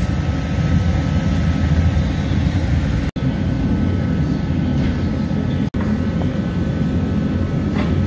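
Steady low rumbling machine-like noise, such as a shop heater or blower running, with no speech over it. It cuts out abruptly for an instant twice, a little past the middle.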